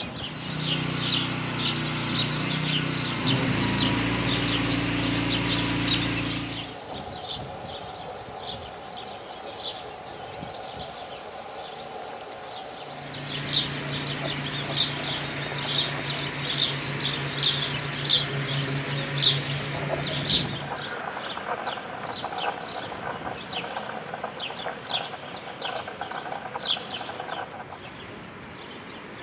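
Small birds chirping in quick, repeated short notes, with a pause partway through. A low, steady engine hum runs underneath for the first several seconds and again for a stretch in the middle.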